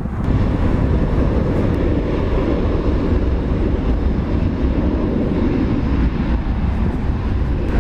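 Boeing 737-800's CFM56-7B turbofan engines at takeoff thrust: a loud, steady jet roar as the airliner accelerates down the runway.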